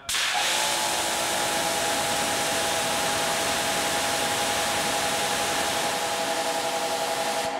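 Bauer 2300 PSI brushless electric pressure washer spraying with the trigger held: a loud, steady hiss of the high-pressure water jet with a steady whine, starting abruptly. It is spraying through a small-orifice Ryobi nozzle and holding about 1900 PSI.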